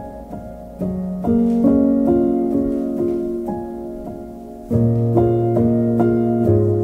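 Soft piano background music: sustained notes overlapping one another, with a deeper bass note coming in about two-thirds of the way through.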